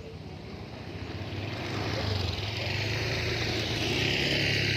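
Motorboat engine running with a steady hum, getting louder as a rushing hiss builds from about a second and a half in, as the boat gets under way on the river.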